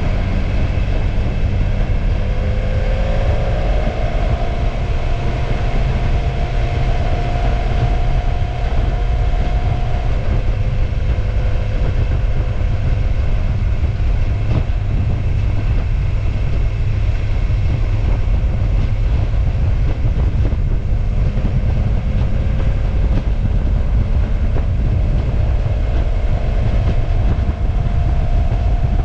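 Motorcycle under way: a steady low wind rumble on the microphone over the running engine, whose pitched note climbs a few seconds in, holds, and comes back near the end. A single short click about halfway through.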